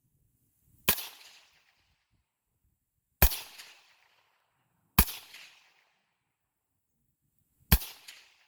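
AR rifle with an integral 14-inch suppressor firing four supersonic rounds, about two to three seconds apart. Each shot is a sharp report followed by a short fading tail.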